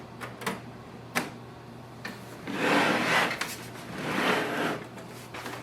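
A few light clicks, then two longer scraping, rubbing noises about two and four seconds in, as a USB cable is handled and plugged into the port at the back of a laser printer. A low steady hum runs underneath.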